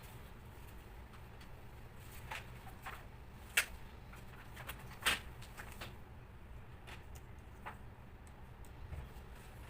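Small plastic and metal clicks and taps from handling laptop parts, two sharper clicks about three and a half and five seconds in, over a low steady hum.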